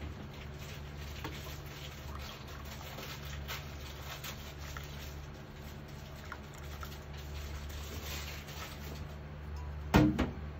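Brewed coffee poured from a glass server into a ceramic mug, a faint trickle over a steady low hum. Near the end comes one sharp knock.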